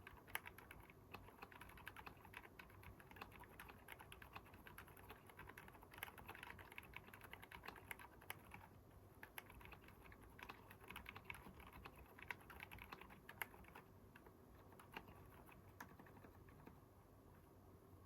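Faint, soft keystrokes of continuous typing on a Keychron K10 aluminium hot-swap keyboard with stock Haimu Sea Salt silent switches, its case and plate lined with foam and Poron to absorb sound.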